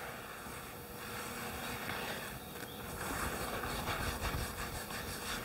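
Wet rag scrubbing over a concrete floor, a soft uneven rubbing, wiping up spilled water-based paint, over a faint steady background hum.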